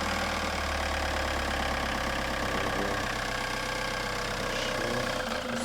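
Ford Transit van's engine running steadily at low revs while the van is eased forward slowly; its low drone drops off just before the end.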